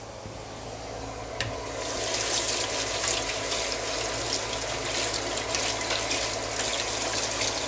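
Kitchen tap running into a sink while fresh cilantro is rinsed in a plastic colander. After a brief click about a second and a half in, the water comes on and runs steadily.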